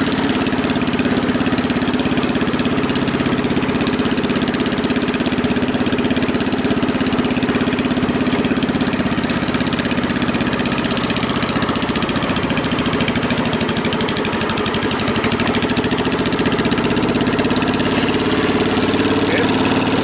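SS14 garden tractor engine running steadily while the tractor is driven, exhausting through its short upright pipe, with a slight dip in loudness about fourteen seconds in.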